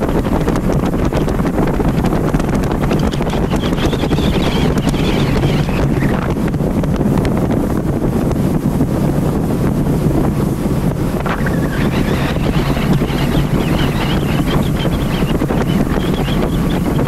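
Wind buffeting the microphone on a motorboat running at speed, over the boat's steady low engine drone. Now and then there is the hiss of water rushing past the hull.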